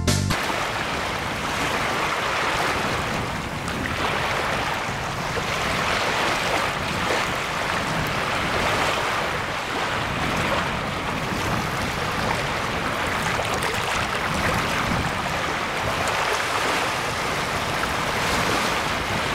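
Small wind-driven waves lapping and washing around the microphone just above the water surface, a steady rushing wash of water mixed with wind.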